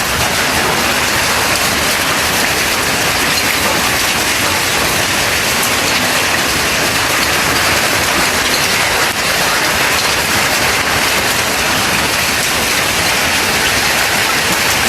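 Heavy rain mixed with hail pouring down in a steady, loud hiss.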